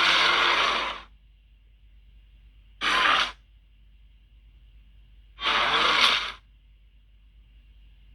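Designed monster creature sound effects: breathy, hissing cries in separate bursts, one ending about a second in, a short one near three seconds and a longer one around six seconds, with quiet gaps between.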